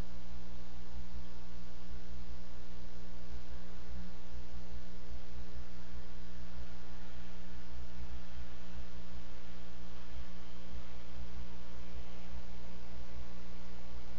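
Steady electrical mains hum with a constant hiss, the noise of a wildlife camera's outdoor microphone and its wiring.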